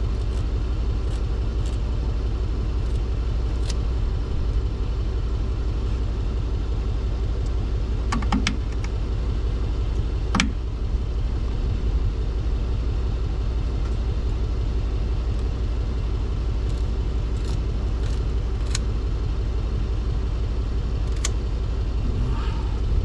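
A vehicle engine idling steadily, with a handful of sharp clicks and clinks from hand work on the truck's torn intercooler hose as the damaged section is cut out.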